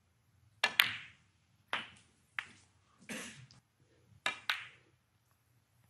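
Snooker balls clicking: the cue tip striking the cue ball and balls knocking together. Several sharp clicks, some in quick pairs, over a few seconds.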